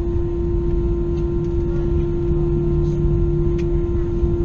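Airbus A320 cabin noise while taxiing after landing: a steady low rumble with a constant mid-pitched hum.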